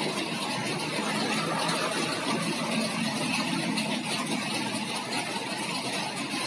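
A vehicle engine idling with a steady hum, over a constant hiss of background noise.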